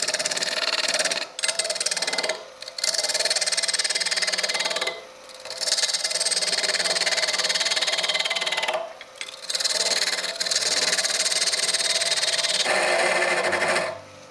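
A turning tool cutting across the end grain of an ash blank spinning on a Robust lathe, facing the end flat: a hissing cut in about five passes of one to four seconds each, with brief pauses between, over the lathe's steady hum. The cutting stops shortly before the end.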